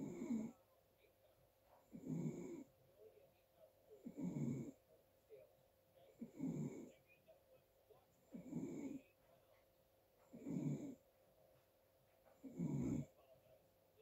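Snoring in a steady, quick rhythm: seven rough snores, about one every two seconds, each lasting under a second, with quiet between them.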